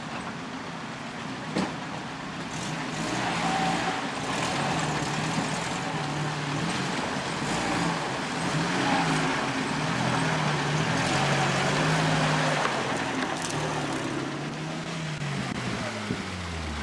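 UAZ off-roader's engine running, its pitch rising and falling as the driver works the throttle crawling through a shallow rocky river, with water splashing around the wheels.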